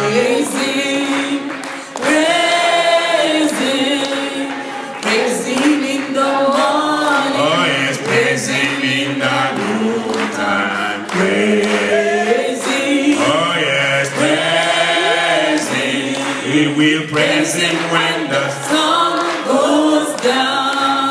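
Church congregation singing a hymn together without instruments, many voices in phrases of a couple of seconds each.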